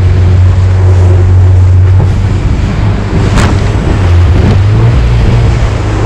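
Jet boat's engine running under power through rapids, with rushing white water and wind buffeting the microphone. The engine eases off briefly near the middle and then picks up again.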